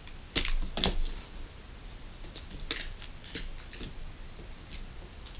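Sharp clicks and taps of small laptop parts being handled and fitted into an opened MacBook Pro: two loud clicks half a second apart near the start, then a few lighter ticks.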